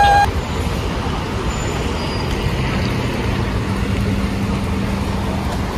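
Moving bus heard from inside the cabin: a steady engine and road rumble, with a faint low hum joining a couple of seconds in.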